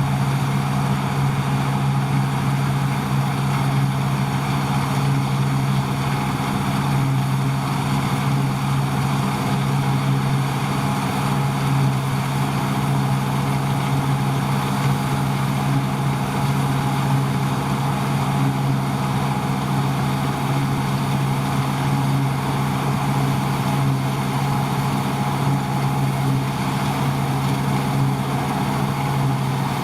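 Deutz-Fahr 5690 HTS combine harvester running steadily at working speed, a constant engine and machinery drone.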